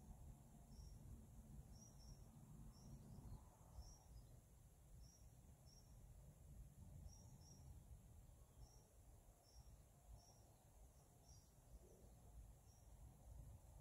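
Near silence: faint outdoor ambience, a low rumble with short high chirps repeating irregularly about once or twice a second.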